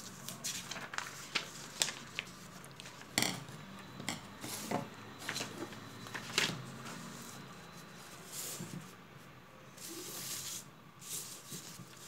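A sheet of paper being unfolded and handled on a table: a run of sharp crackles and snaps for the first six seconds or so, then a couple of longer rustling swishes as the sheet is slid and smoothed flat.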